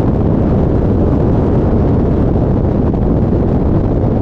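Steady rush of airflow buffeting the microphone of a camera mounted on the outside of a Cessna 177RG Cardinal in flight, over the low drone of its engine and propeller.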